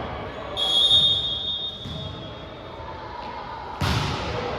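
A referee's whistle blows one high, steady blast about half a second in, fading out after about a second; about three seconds later a volleyball is struck with a sharp smack.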